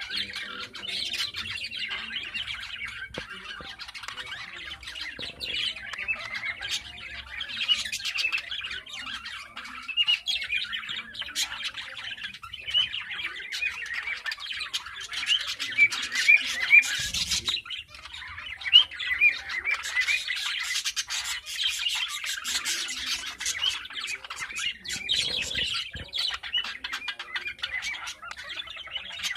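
Budgerigars chattering: a continuous stream of rapid chirps, warbles and squawks.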